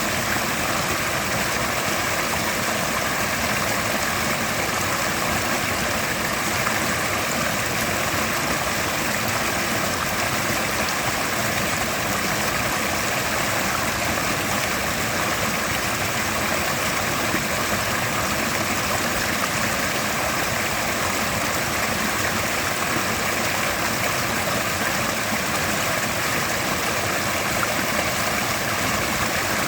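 Mountain river rushing steadily over rocks, a constant even roar of flowing water with no change throughout.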